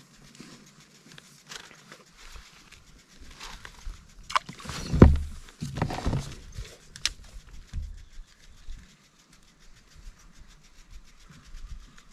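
Scattered knocks and clicks of fishing gear being handled in a small boat as a spinning reel is worked. The loudest is a dull bump about five seconds in.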